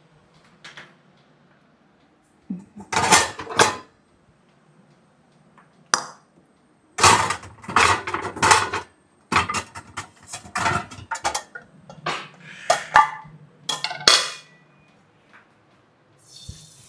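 Metal cooking pots, pans and utensils clanking and scraping in bursts of clatter: a short burst about three seconds in, then a dense run of knocks and scrapes through the middle.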